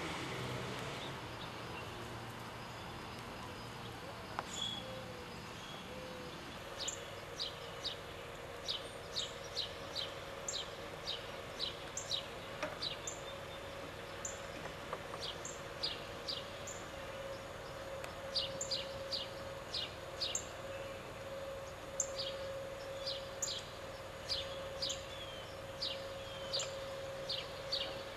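Small bird chirping: many short, high, downward-sliding chirps, irregular and at times several a second, starting about seven seconds in. A steady faint hum begins about six seconds in.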